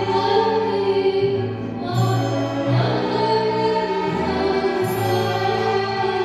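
Live string ensemble, with violins and double bass, playing a slow piece of held notes that change about once a second, with singing over it.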